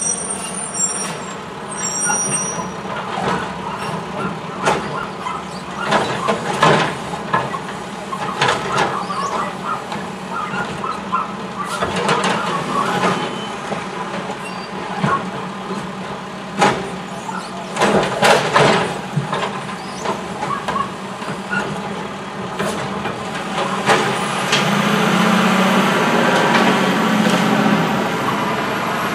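Mack automated side-loader garbage truck's diesel engine running while its hydraulic arm grabs and tips two wheeled garbage carts, with repeated clatters and bangs of the carts and lids and hissing air brakes. Near the end the engine gets louder as the truck pulls away.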